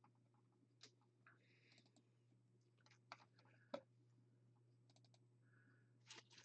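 Near silence: a low steady hum with a few faint, scattered clicks and taps, the sharpest about four seconds in.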